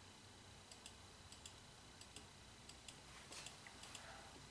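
Near silence with faint, regular double ticks about every two-thirds of a second, and a brief rustle a little over three seconds in.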